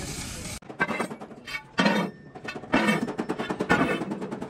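A fire over stacked leaf springs hisses steadily, then cuts off abruptly about half a second in. Music follows, with loud pulses about once a second.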